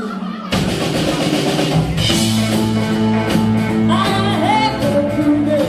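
Live rock band playing a boogie; the full band comes in hard about half a second in after a held note, with gliding, voice-like wails above the groove.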